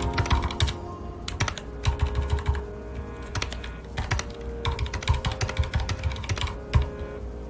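Typing on a mechanical keyboard with red linear switches: runs of rapid key clicks broken by short pauses of under a second, with soft background music underneath.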